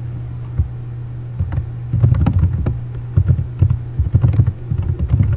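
Computer keyboard typing: clusters of quick keystrokes starting about a second and a half in, over a steady low electrical hum.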